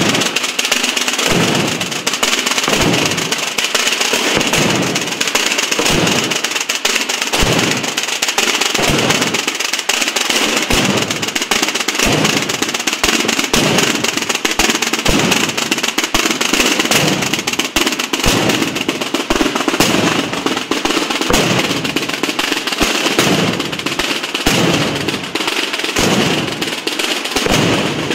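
Massed Holy Week procession drums: many snare-type drums keep up a dense, continuous rattling beat while bass drums strike about once a second underneath.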